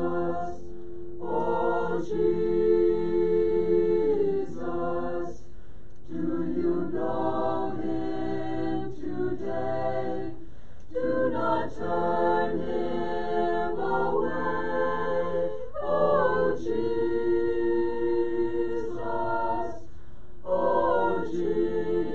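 Mixed-voice choir singing a hymn a cappella in long held chords, with brief pauses between phrases.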